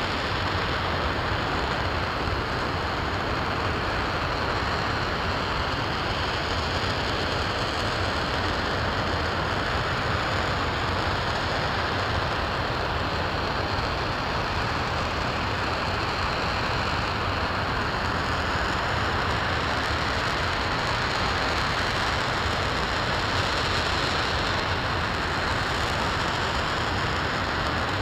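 RS-25 liquid-hydrogen/liquid-oxygen rocket engine firing at steady thrust, mid-way through a long hot-fire test: a steady, unbroken rushing noise with no change in level.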